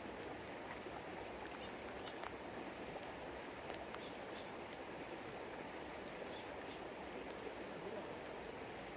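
Steady rush of flowing river water, with a few faint scattered ticks over it.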